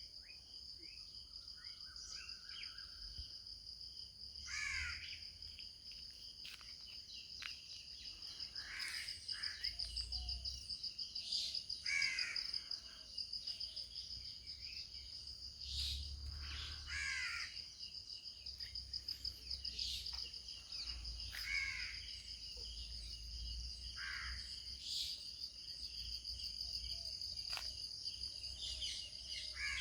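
A steady, high, pulsing insect trill, with birds calling every few seconds over it.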